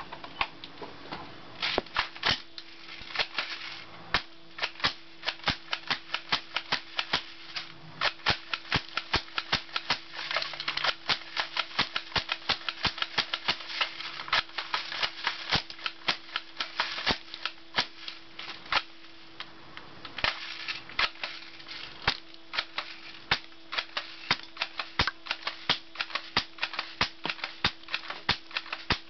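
Airsoft shotgun fired again and again at a plastic DVD case: an irregular, rapid string of sharp clicks and snaps from the shots and the plastic BBs striking and scattering off the case, over a faint steady hum.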